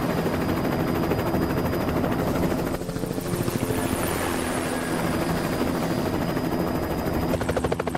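Helicopter flying low and close, its rotor beating rapidly and steadily.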